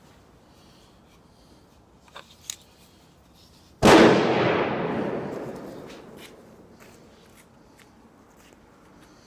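A single gunshot about four seconds in, very loud and echoing away over about two seconds. Shortly before it come two light clicks.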